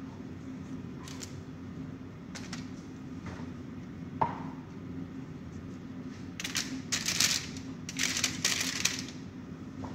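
Aluminium foil crinkling and disposable plastic gloves rustling as asparagus spears are laid on a foil-lined baking tray, in short bursts that are densest in the second half, with a single sharp tap about four seconds in. A steady low hum runs underneath.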